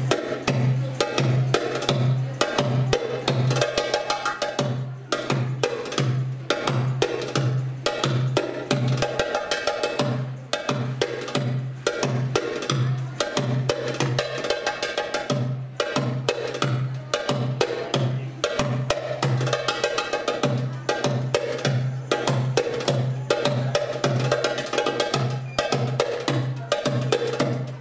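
Goblet drum (darbuka) played live in a fast solo: deep bass strokes on a steady beat, about two to three a second, with quick sharp rim strokes filling the gaps between them.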